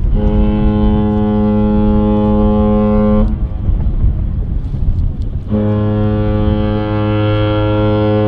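Large ship's horn sounding two long, deep blasts with a gap of about two seconds between them, over low wind rumble on the microphone.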